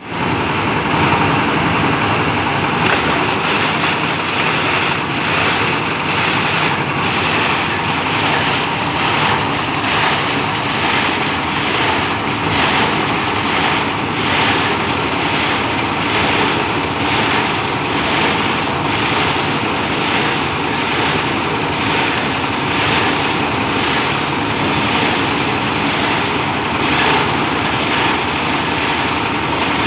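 Plastic shredder machine running steadily, its motor and cutting rotor making a loud, continuous mechanical noise with a regular pulsing rhythm.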